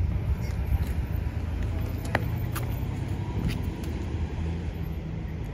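Outdoor low rumble of wind buffeting the microphone, uneven and gusty, with a few faint clicks about two to three seconds in.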